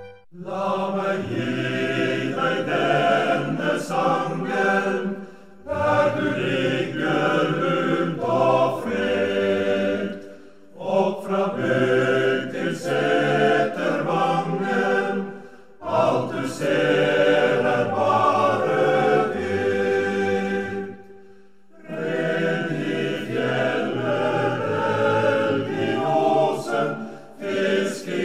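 Background music: a choir singing in long phrases of about five seconds, each followed by a brief pause.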